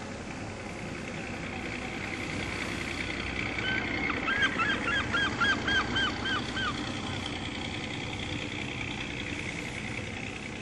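Steady drone of a fishing boat's engine. A bird cuts in a few seconds in with a run of about nine short, falling calls, roughly three a second, which are the loudest part.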